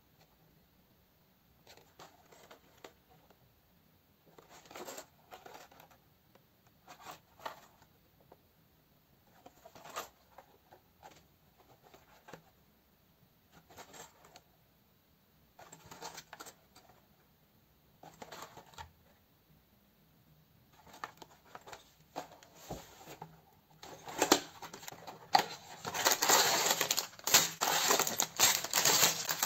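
Small cardboard toy boxes handled: brief scrapes and taps every couple of seconds. Near the end, louder continuous crinkling and rustling as the box is opened and its plastic bags of bricks are handled.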